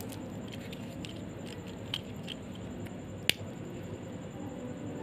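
Disposable lighter being struck: a few faint clicks, then one sharp click a little over three seconds in as it catches, over a steady low background noise.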